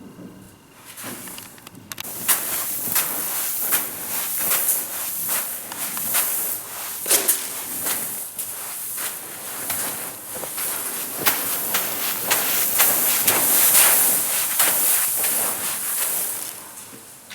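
Loose dry grain in a heap hissing and crunching in irregular strokes as it is disturbed, starting about two seconds in and easing off near the end.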